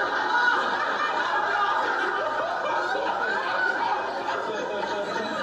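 Live audience laughing, many voices together at a steady level.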